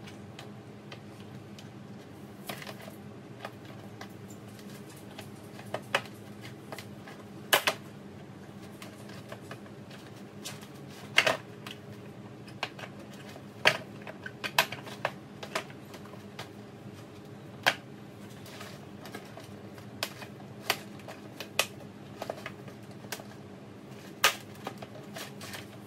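Sharp, irregular plastic clicks and knocks as cleaned tackle box drawers are handled and slid back into the box, over a steady low hum.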